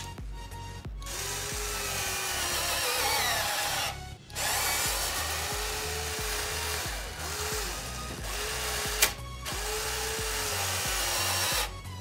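Small electric servo and screw-actuator motors in a remote-control conversion of a Bruder bulldozer model, whirring in three long runs with short stops as the blade and ripper are moved, and one sharp click near the end.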